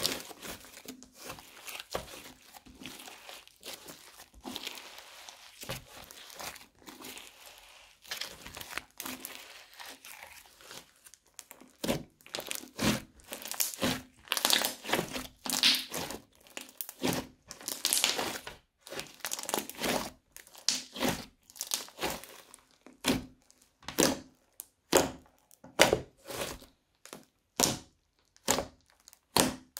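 Crunchy slime squeezed and pressed by hand, crackling. It starts as a soft, continuous crackle, then about halfway through turns into a run of sharp crackling squishes, roughly one a second.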